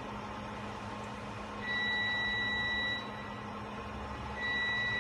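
Electronic beeper sounding two long, steady beeps of one pitch, the first about a second and a half in and the second starting near the end, over a steady electrical hum.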